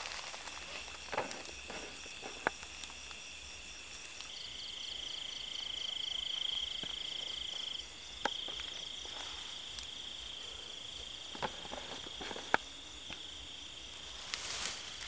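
Night insects calling steadily in a high, shrill trill. One close insect starts loud about four seconds in, breaks off briefly near the middle and then resumes. Scattered short rustles and snaps come from grass and stalks being handled.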